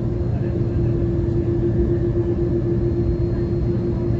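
Steady vehicle running noise: a low rumble under a constant mid-pitched hum.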